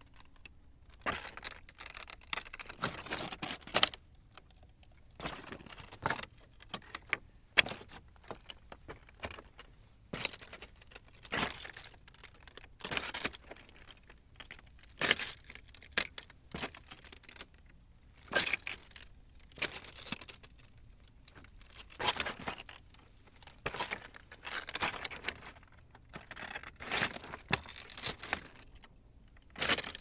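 Footsteps walking over loose rocks: each step is a crunching clatter of stones shifting underfoot. The steps come unevenly, about every one to two seconds.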